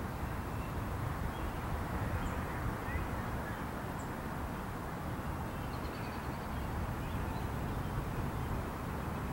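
Outdoor ambience: a steady low rumble of wind on the microphone, with a few faint bird chirps and a short trill about six seconds in.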